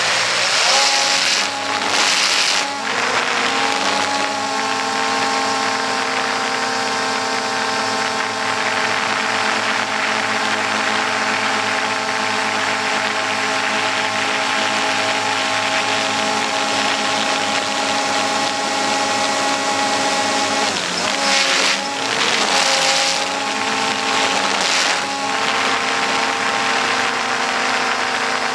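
XK X380 quadcopter's motors and propellers whining steadily, heard from on board, with gusts of wind noise about a second in and again around twenty-one to twenty-five seconds in, where the motor pitch briefly shifts. The quadcopter is climbing out of control, which the uploader puts down to probably an ESC fault needing calibration.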